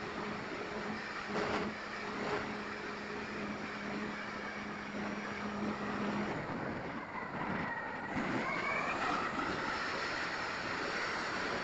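Twin brushless electric motors and propellers of an E-flite Twin Otter RC plane in flight, heard from a tail-mounted camera, under heavy wind rush on the microphone. A steady low tone drops out about six seconds in, and a rising whine follows around eight seconds as the motor sound changes.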